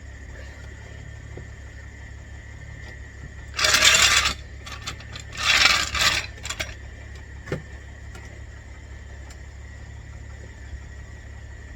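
Two metal scrapes about two seconds apart, a car jack being shifted and worked under the car, followed by a couple of light knocks.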